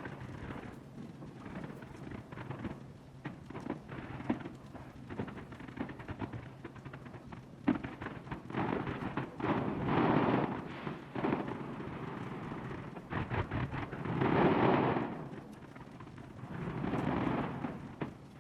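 Aerial fireworks going off: a steady run of crackles and pops, with three louder, longer rumbling swells of bursts about ten, fourteen and seventeen seconds in.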